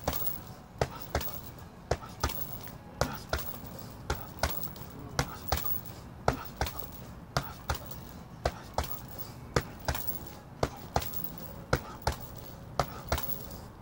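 Boxing gloves striking a hanging heavy punching bag: a steady run of sharp punches landing about two a second, often as quick one-two pairs.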